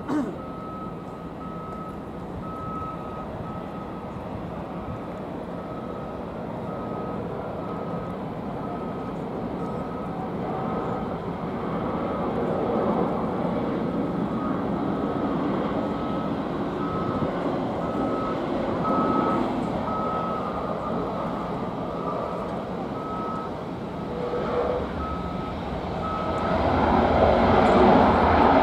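A vehicle's reversing alarm beeping steadily, about twice a second, over the jet engine noise of a Garuda Indonesia Airbus A330 on landing approach. The jet noise swells and is loudest near the end.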